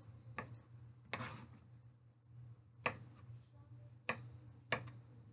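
Kitchen utensils knocking and clicking as red potatoes are cut and handled: about five sharp taps at uneven intervals, one with a short scrape, over a low steady hum.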